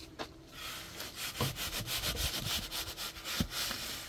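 Quick repeated scraping strokes on wood, with two heavier knocks among them.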